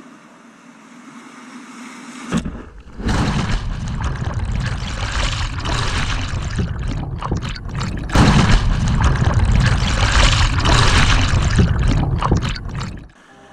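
Whitewater rapid rushing, then from about two seconds in a loud, turbulent rush of water heard from beneath the surface of a muddy high-water creek, with a few brief dropouts. It cuts off suddenly near the end.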